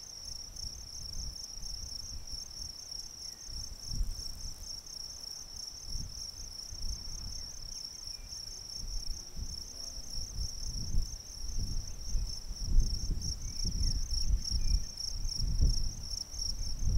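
Field insects chirring in a steady, rapidly pulsing high trill, with wind buffeting the microphone in low rumbles that grow stronger in the second half.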